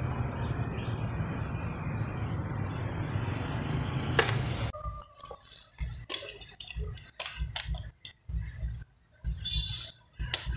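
Small metal parts and hand tools clinking and tapping against each other, a series of irregular clicks and knocks over the second half, with a sharp single click just before; a steady low hum runs under the first half.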